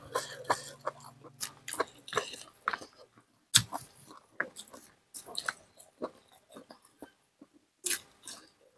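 A person chewing and biting food close to a lapel microphone: irregular wet clicks, smacks and crunches, with a sharper bite about three and a half seconds in and another near the end.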